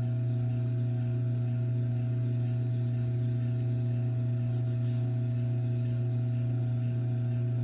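Tormek T4 wet sharpener's electric motor running with a steady low hum. A brief faint handling rustle comes about five seconds in.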